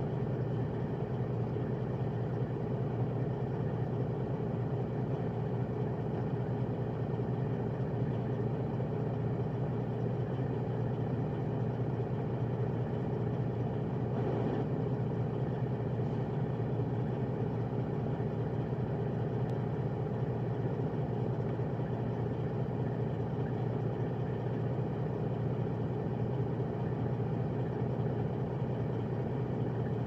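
Freightliner Coronado semi truck's straight-piped diesel engine idling, a steady low drone heard from inside the cab.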